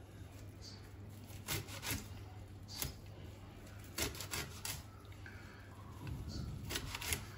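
Curved kitchen knife slicing through a hand-held bunch of red amaranth leaves: a handful of faint, short cutting strokes scattered through, over a steady low hum.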